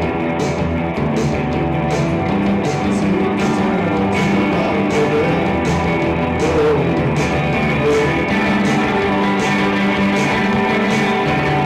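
Live rock band playing: electric guitar over drums, with cymbal hits at a steady beat.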